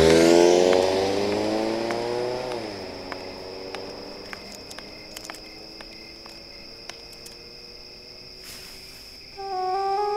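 A car driving off, its engine note falling and fading over the first three seconds into a faint hum. A few light clicks follow, and soft flute-like music comes in near the end.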